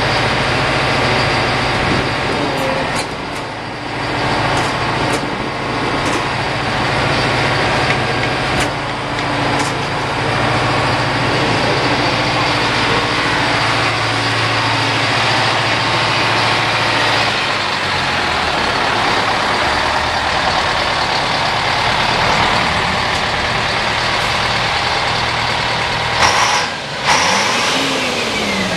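Diesel engines of heavy FTF trucks idling and running, Detroit Diesel-powered. The engine note shifts lower about two-thirds of the way through. A short loud hiss comes near the end.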